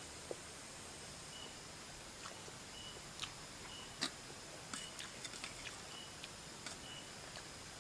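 Soft, scattered clicks and smacks of someone chewing and eating noodles, the sharpest about halfway through. A short high chirp repeats about once a second in the background.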